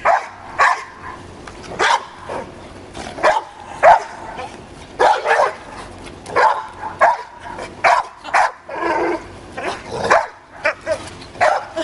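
Dog barking repeatedly, short sharp barks coming every half second to a second.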